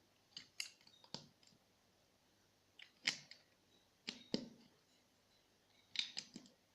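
Plastic toy construction bricks clicking and tapping as they are picked up and pressed into place, a few separate clicks at a time with pauses between.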